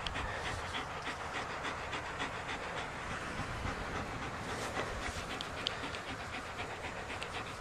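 Black German Shepherd panting steadily, several quick breaths a second, close up.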